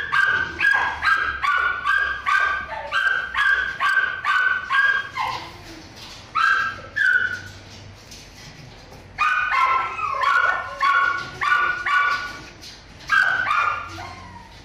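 A dog barking in fast runs of short, high-pitched barks, about two to three a second, with two breaks of a second or two in the middle.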